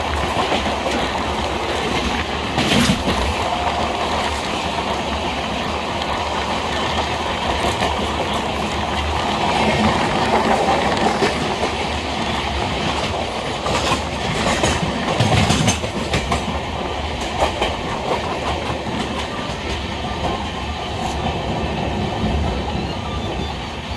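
Wheels of the Dhauli Express passenger coach clattering over rail joints and points, heard from the open door of the moving coach. A steady rumble runs throughout, with a sharp clack about three seconds in and a cluster of louder clacks around the middle as the wheels cross the points.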